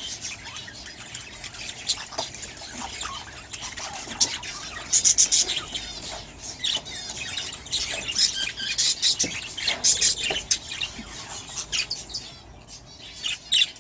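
A flock of aviary budgerigars chirping and chattering: many short high chirps that grow busier and louder from about four seconds in.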